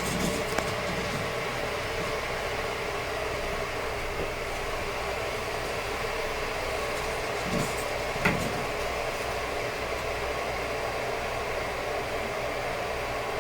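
Steady mechanical hum and hiss, like a fan or air conditioner running, with a few soft knocks and clicks, the sharpest about eight seconds in.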